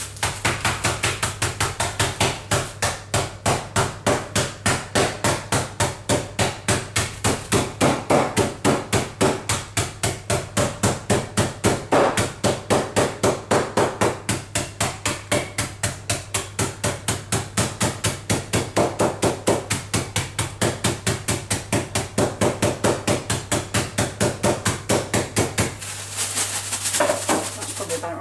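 Rolling pin bashing digestive biscuits in a tied bag to crush them into crumbs: rapid, regular thuds at about four a second, giving way near the end to a denser crunching noise.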